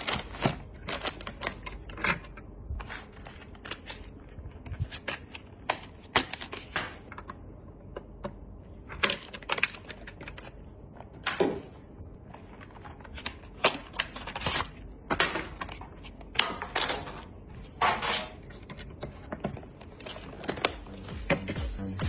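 Irregular clicks, taps and short scrapes of computer hardware being handled and fitted together during a PC build.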